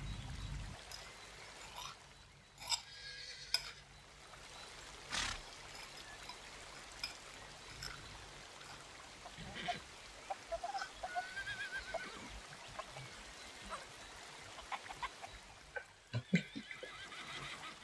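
Scattered light clinks and scrapes of a metal fork and spoon on a ceramic plate, with soft rustling, as a potato stick is rolled and covered in dry breadcrumbs. Near the end, cooking oil is poured into a non-stick frying pan.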